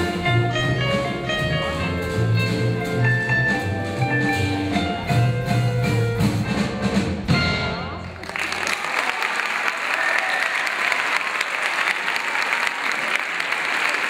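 A live band plays a tune with a bass line, pitched melody notes and a steady beat, ending about eight seconds in. Audience applause follows and runs on.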